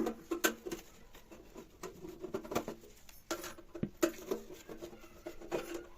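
Screws being taken out of an amplifier's casing with a screwdriver: irregular small clicks and scrapes of the tool and screws.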